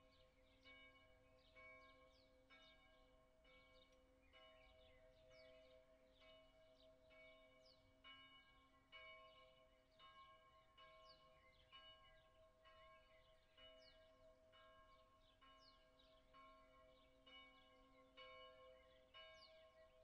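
Church bell ringing for noon, heard faintly from a long distance: strokes about once a second over a lingering, ringing hum.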